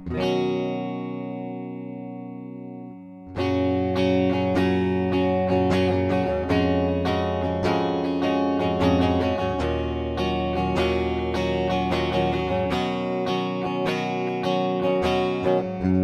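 Washburn XM STD2 electric guitar with Seymour Duncan pickups, played with both pickups selected (the switch's middle position) and a tone short of full distortion. A chord is struck and left ringing, then from about three seconds in comes a quick run of picked notes and chords.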